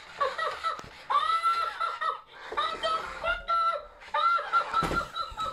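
Tickle Me Elmo plush toy laughing and chattering in Elmo's high-pitched recorded voice, in repeated bursts. A thump comes near the end.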